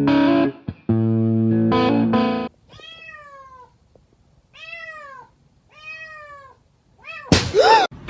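Guitar music plays and stops about two and a half seconds in, then a cat meows three times, each meow rising and then falling in pitch. A sudden louder, harsher cry comes near the end.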